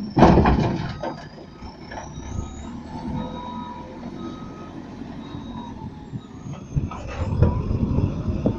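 A JCB 3CX backhoe loader dumps a bucket of dirt and rocks into a steel dump-truck bed, a loud crash lasting about a second near the start. Its diesel engine then runs steadily as the machine backs away, getting louder near the end.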